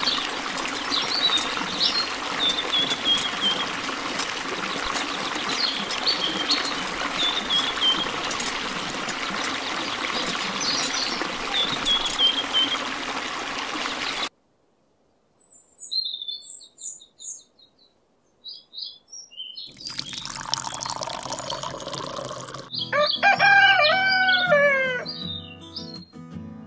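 A thin stream of water from a miniature hand pump's spout splashes steadily into a small basin, with short falling bird chirps over it. About halfway through, the water sound cuts off abruptly, leaving scattered bird chirps and then music.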